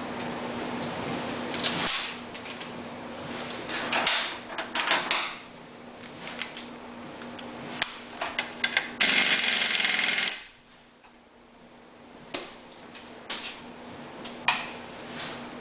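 Workshop handling sounds of tools and metal parts: scattered clicks, knocks and rustles, with a loud even hiss about nine seconds in that lasts a second and a half. A faint steady hum runs under it and stops just after the hiss.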